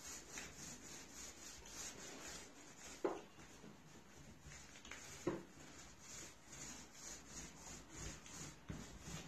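Foam paint roller rubbing faintly back and forth over the dishwasher panel, laying on paint, with two short knocks, about three and five seconds in.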